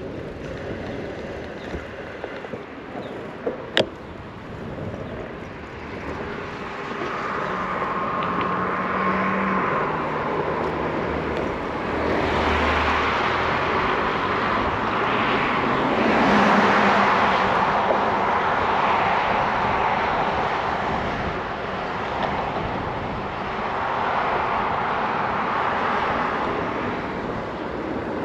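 Road and wind noise of a bicycle ride, picked up by a handlebar-mounted camera, rising and falling as car traffic passes. A single sharp click about four seconds in.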